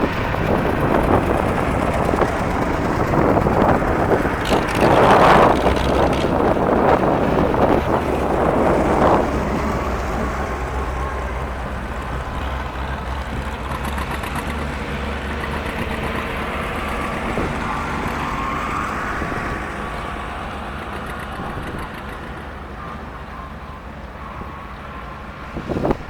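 Farm tractor engines running steadily as they pass in a parade, louder in the first part and fading after about ten seconds, with wind buffeting the microphone in gusts.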